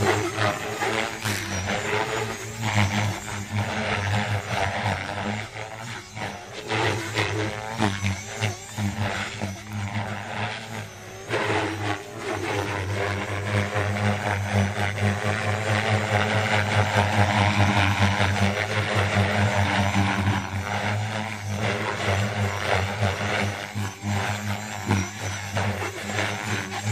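Align T-Rex 470 electric RC helicopter flying hard 3D manoeuvres. A steady low rotor hum sits under a motor and gear whine that wavers up and down as the blades load and unload, with short whooshes of blade noise throughout.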